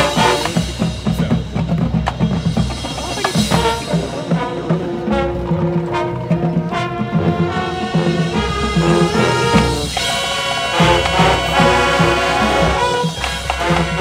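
Marching band playing: brass with drums and percussion, with held brass chords over a steady drum beat.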